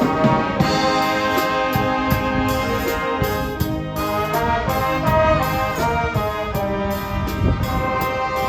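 Brass music with trombones and trumpets playing a melody of held notes over a percussion beat.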